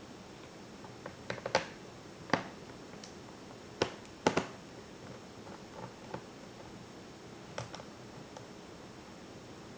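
Scattered sharp clicks and taps of small plastic and metal laptop parts and tools being handled during disassembly, a quick cluster about a second in, then single clicks, thinning out in the second half.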